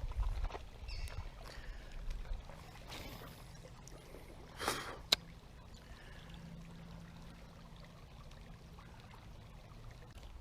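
Water moving and splashing around an angler wading a creek pool, with a short swish and a single sharp click about five seconds in.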